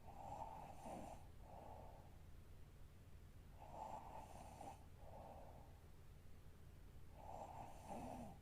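A young woman snoring faintly in her sleep, a slow breath about every three and a half seconds, three in all, each a longer snoring part followed by a shorter one.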